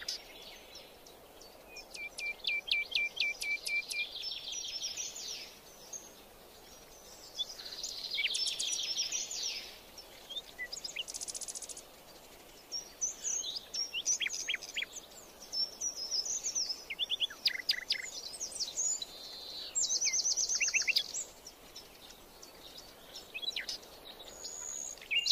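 Several wild birds singing and calling in a swamp, with repeated bursts of rapid chirps, trills and sweeping notes, over a faint steady hiss.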